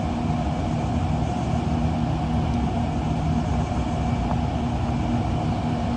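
Steady rush of water pouring down the face of a concrete dam into the river, with a steady low hum underneath.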